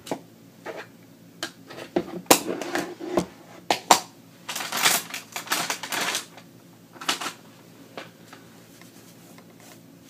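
Crafting handling sounds: a clear acrylic stamp block pressed, lifted off card stock and set down on a cutting mat, giving a run of sharp clicks and knocks, with a couple of seconds of paper rustling about halfway through.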